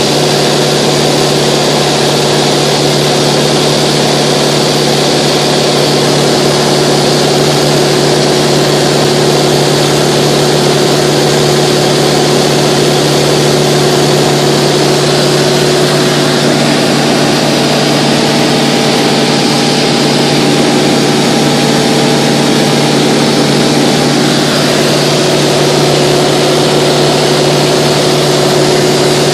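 Steady cabin drone of a Mooney 201's four-cylinder Lycoming engine and propeller in level cruise at about 55% power, heard from inside the cockpit over a rush of air noise.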